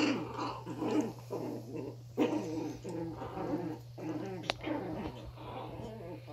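Puppies and a young dog growling in play as they wrestle, a continuous string of short, rising and falling grumbles with a sharp click about halfway through.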